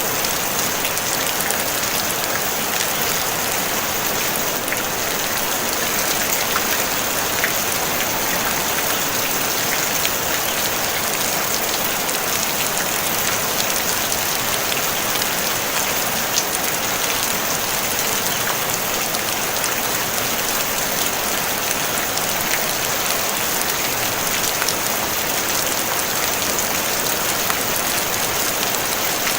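Steady rain falling on a tin roof: an even hiss of rain with many small drop ticks, without thunder.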